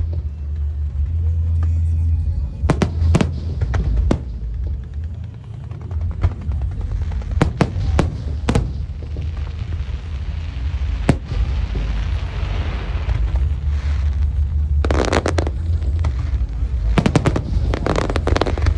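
Fireworks going off: repeated sharp bangs over a deep rumble of booms, with dense bursts of crackling about fifteen and seventeen seconds in.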